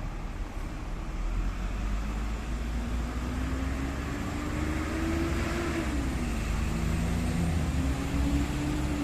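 Road traffic: a passing vehicle's engine rising in pitch, dropping about six seconds in and then rising again, over a steady low rumble.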